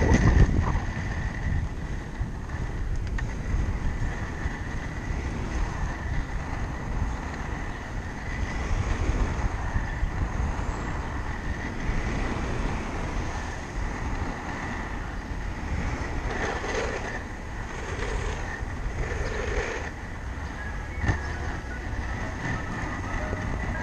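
Large urethane inline skate wheels (three 110 mm wheels per NN Sumo frame) rolling over rough city asphalt, giving a steady gritty rumble, with wind buffeting the hand-held camera's microphone.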